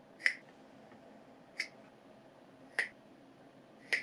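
Four sharp, snap-like clicks, evenly spaced about a second and a quarter apart, over quiet room noise.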